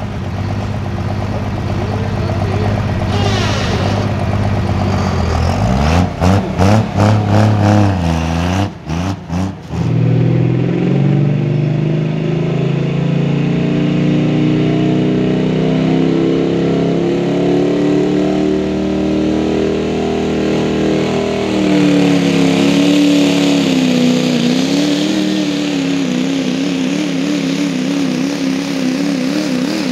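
Diesel pulling pickups running hard. The first engine breaks off and cuts out about ten seconds in. Then a second truck's diesel builds revs and labours under load pulling the sled, its note wavering quickly up and down in the last several seconds.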